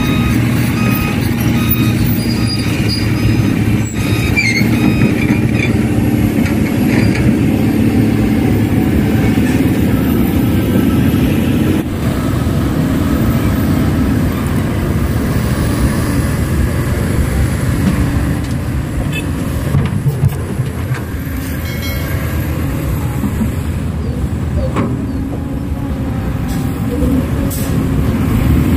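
Heavy diesel machinery running steadily, a deep engine sound that continues throughout.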